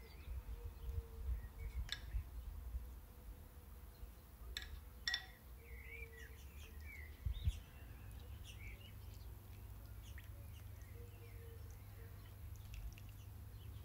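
Birds chirping in short, scattered calls, with a few sharp clicks and knocks and a low thump about halfway through.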